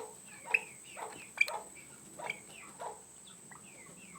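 Penned chickens and pheasants calling: a series of short, falling chirps and clucks, roughly one every half second, fading out toward the end.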